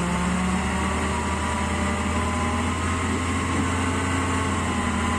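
Heavy dump truck's engine running steadily while the hydraulic hoist tips up its sand-loaded bed.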